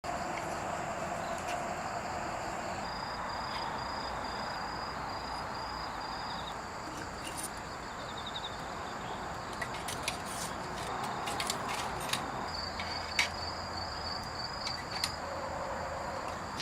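Insects chirping outdoors: a steady high-pitched drone with pulsing high trills that come and go, over a steady background hiss. Scattered sharp clicks and taps come in the second half, the loudest about two-thirds of the way through.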